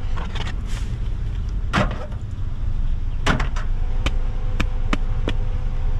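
Fabric car floor mat being shaken out by hand: a single swish about two seconds in, then a run of sharp slaps about twice a second from about three seconds in, over a steady low rumble.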